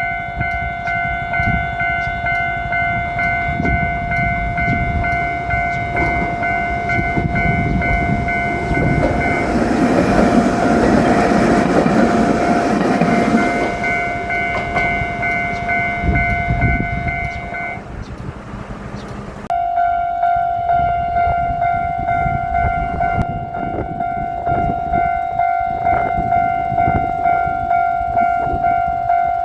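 Japanese level-crossing warning bell ringing its repeated electronic 'kan-kan' about twice a second. A Kotoden 600-series electric train rumbles and clatters through the crossing in the middle, loudest around ten to fourteen seconds in. The bell stops briefly at about eighteen seconds, then starts ringing again.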